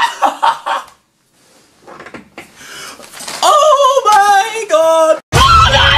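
A brief near-silence, then a voice drawn out in a few wavering, sliding notes, sung or wailed without words. It is cut off about five seconds in by loud music with a heavy, bass-laden beat.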